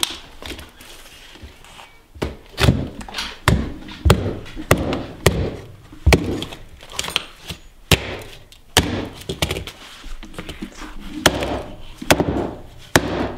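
Claw hammer smashing an old mobile phone on a workbench: a run of sharp, irregular blows, about one or two a second, starting about two seconds in.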